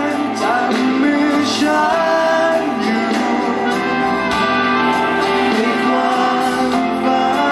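Male singer singing live into a microphone, backed by a live band with electric guitar.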